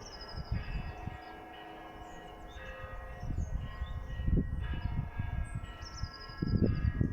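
A bell being struck repeatedly, about once a second, each stroke ringing on into the next. Irregular low rumbling runs underneath and is loudest near the end.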